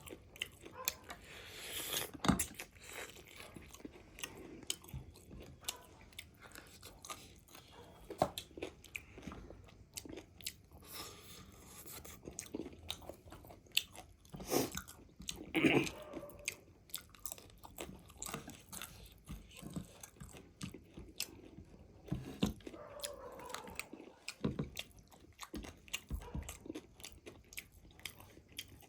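Close-up eating of crispy fried chicken leg pieces: irregular crunching bites and chewing, with a few louder crunches about two seconds in and around the middle.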